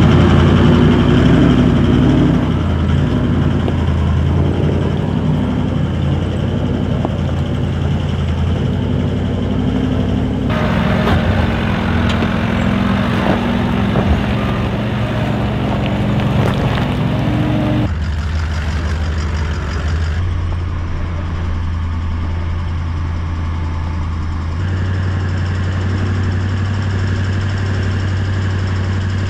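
Four-wheel-drive engines running steadily as a Toyota LandCruiser 70 Series and a dual-cab ute climb a steep, rocky dirt track. The engine note changes abruptly a few times, and near the end the engine is heard from inside the cab.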